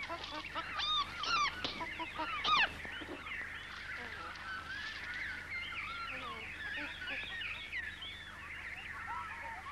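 Many birds calling at once in a dense chorus of chirps and whistles. A few louder swooping calls stand out in the first three seconds, then the chatter runs on steadily.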